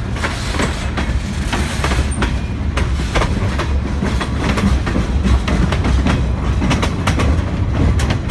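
Railway cars rolling past, with a steady low rumble and irregular sharp clicks of the wheels over rail joints.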